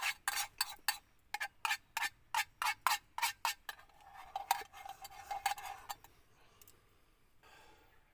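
Chopsticks clicking against a rice bowl, about three sharp clicks a second for a few seconds, then fainter, sparser clicks.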